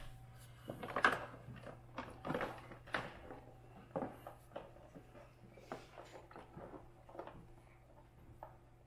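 Scattered light clicks and knocks of hand work on a plastic fender part as a plastic bracket is worked loose, over a faint steady low hum.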